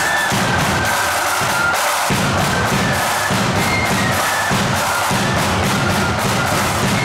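Marching flute band playing a tune: a rank of flutes carries the melody over bass drum and side drums.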